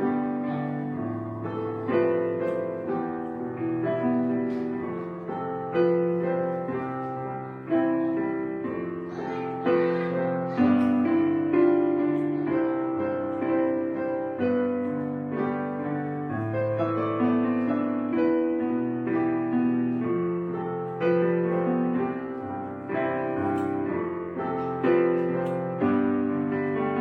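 Background piano music, slow sustained chords and notes struck every second or two.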